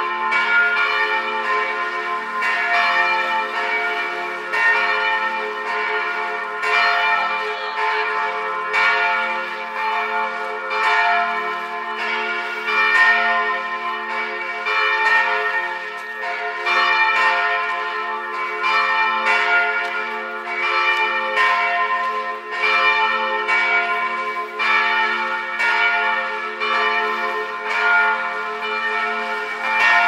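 Several church bells ringing together in a continuous peal, struck about once or twice a second, their tones overlapping and hanging on between strokes.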